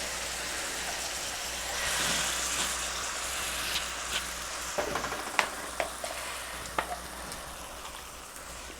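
A pan of browned ground beef sizzling steadily, the sizzle swelling about two seconds in. Several light clicks and taps sound over it a little past the middle.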